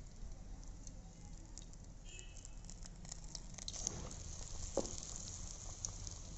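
Battered potato pakoras deep-frying in hot oil in a kadai: a steady sizzle with many small crackles.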